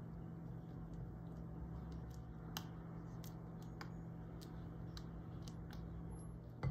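A silicone spatula folding whipped cream into a cheesecake batter in a glass bowl, with scattered light clicks of the spatula against the glass over a steady low hum, and one louder knock on the bowl at the very end.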